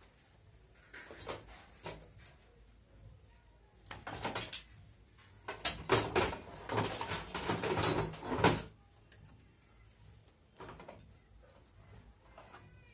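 Handling noise at a hand-operated knitting machine: scattered clicks and knocks, a short rattle about four seconds in, then about three seconds of loud, dense rattling and scraping.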